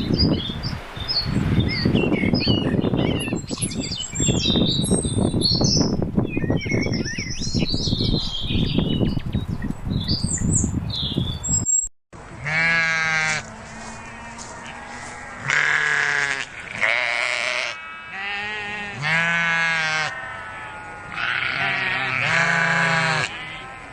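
Birds chirping high over a dense, loud rumbling noise, then a sudden cut to a sheep or goat bleating: several long, wavering calls with short pauses between them.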